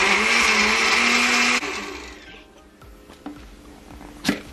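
Black+Decker countertop blender running on hot tomato and chile sauce, its motor pitch rising slightly. It is switched off about a second and a half in and spins down. A few light clicks follow, with a sharp click near the end as the blender lid is handled.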